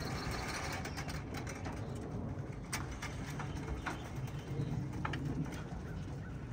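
Young racing pigeons cooing in the loft, a steady low burble, with a few sharp clicks about three, four and five seconds in.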